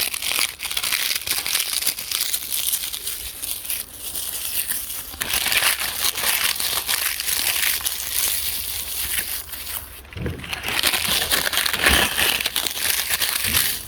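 Crunchy puffed snack being chewed close to the microphone: dense, crackly crunching in waves, easing briefly about four seconds in and again about ten seconds in.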